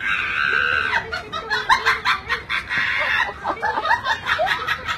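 Voices laughing and snickering in short bursts, after a high, held sound about a second long at the start.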